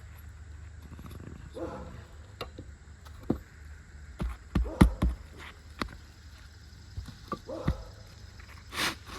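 Irregular knocks, clicks and scrapes of hand tools working an asphalt roof shingle loose, the loudest hits about halfway through. A steady low rumble runs underneath.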